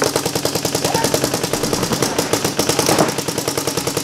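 Paintball markers firing in a rapid, continuous stream of shots.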